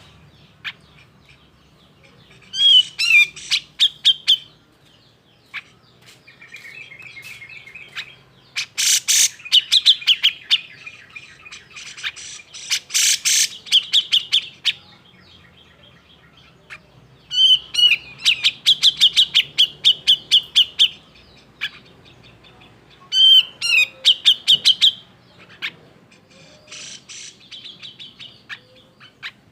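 Grey-cheeked bulbul (cucak jenggot) giving agitated, rapid chattering calls in repeated bouts of one to two seconds, with short pauses between them.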